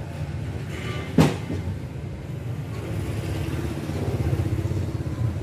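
Low, steady rumble of a running engine, with one sharp click about a second in.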